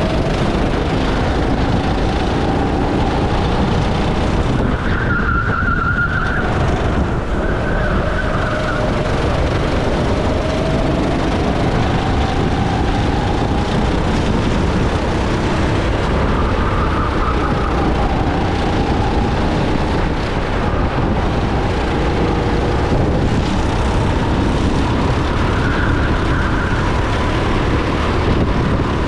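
Racing go-kart engine running at speed, its pitch rising and falling over and over as it is revved out and lifted through the corners, with a steady rush of noise beneath it.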